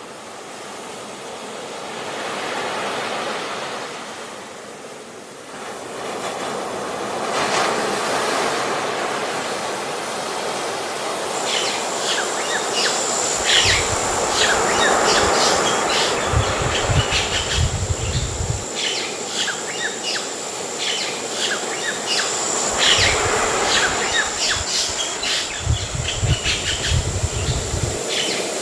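Sea surf washing steadily. From about a third of the way in, a busy chorus of bird chirps joins it over a steady high-pitched whine. Two stretches of low rumbling come in the second half.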